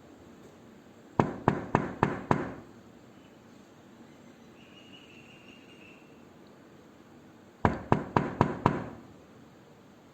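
Knocking on a door: two bouts of five quick knocks each, about six seconds apart.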